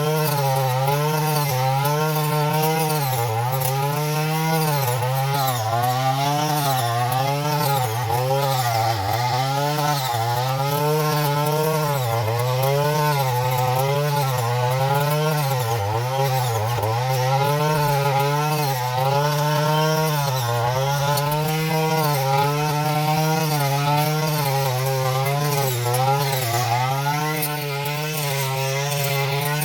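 Small engine of a mini rice harvester running continuously, its pitch rising and falling every second or two as its speed shifts under load.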